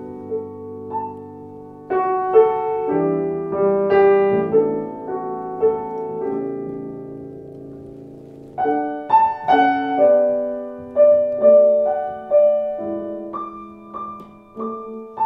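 Restored 1887 Blüthner style VIII grand piano with new hammers being played. Slow held chords ring and fade, then from about nine seconds in a phrase of separate notes over sustained harmony.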